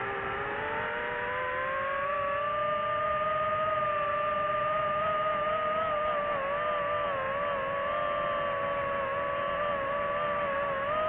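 DJI FPV drone's propellers whining. The pitch rises over the first couple of seconds as the throttle comes up, then holds with small wobbles.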